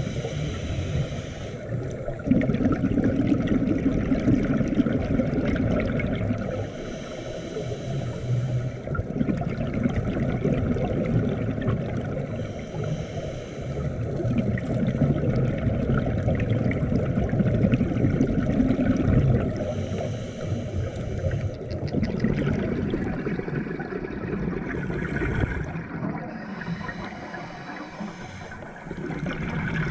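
Scuba breathing heard through an underwater camera housing: a short regulator hiss on each inhale, about every six seconds, alternating with a longer low bubbling of exhaled air, over a steady underwater rumble.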